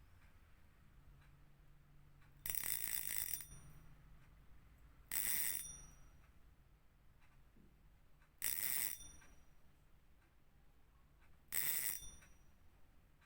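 Fishing reel drag buzzing as line is pulled off in four short runs, each about a second or less, roughly every three seconds.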